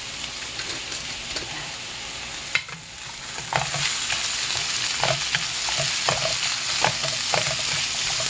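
Salted watermelon rind strips sizzling in an oiled frying pan as they are stir-fried. About three and a half seconds in, the sizzle gets louder and frequent short clacks of the stirring against the pan come in.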